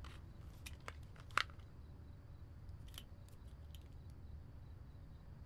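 Faint handling of a photo album: a few small clicks and crackles of pages and photos, the sharpest about one and a half seconds in, over a low steady room hum.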